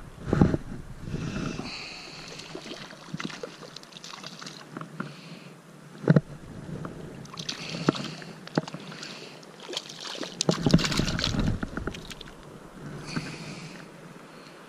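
A small trout splashing at the water's surface while being played in on a fly rod and lifted out by hand. Irregular rumbling knocks from wind and handling noise on the head-mounted camera's microphone run through it, with one sharp knock about six seconds in.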